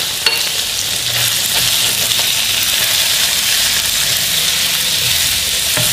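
Chicken pieces with onions, green chillies and spices sizzling in hot oil in a non-stick frying pan, stirred with a silicone spatula. The sizzle is steady, with a light knock just after the start and another near the end.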